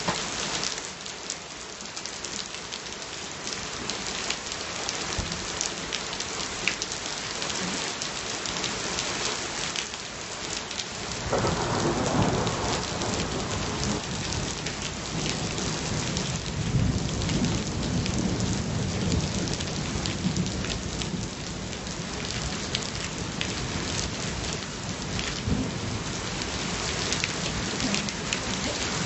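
Steady rain falling close to the microphone, with many small drop hits. About eleven seconds in, thunder breaks suddenly and rumbles on for around ten seconds, swelling again midway, before fading back under the rain.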